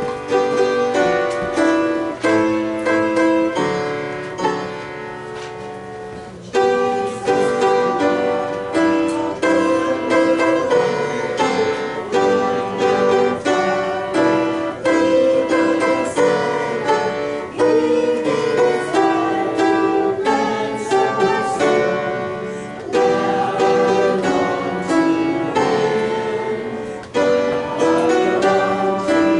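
Instrumental music of held, plucked or keyboard-like notes, starting abruptly; it dies away about five seconds in and picks up again about a second later.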